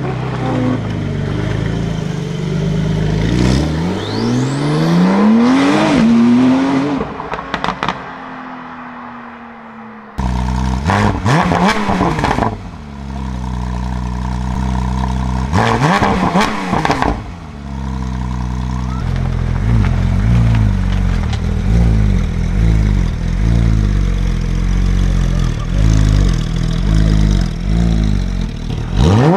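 Porsche 911 flat-six engines: a 992 Turbo cabriolet's twin-turbo flat-six pulling away with rising revs. After a sudden cut, a 991 GT3 RS's naturally aspirated flat-six is revved sharply twice and then runs steadily under way.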